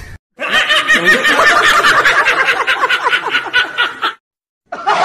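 Men laughing hard in a fast run of repeated ha-ha bursts lasting about four seconds.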